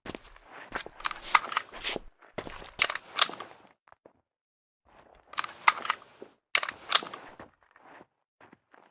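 Ruger 10/22 rifle being handled: several short clusters of sharp metallic clicks and clacks, with brief pauses between them and a few fainter clicks near the end.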